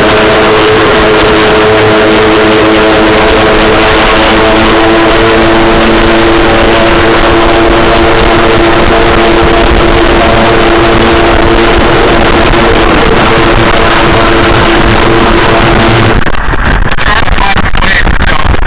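Jet boat running at speed, heard from on board: a steady engine drone with rushing water and wind. About two seconds before the end the steady engine note drops out into a rough, choppy noise.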